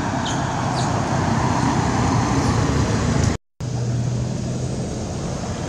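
Road traffic going by: a steady rush of passing vehicles that swells over the first three seconds. It breaks off in a brief gap, then goes on with a low engine hum.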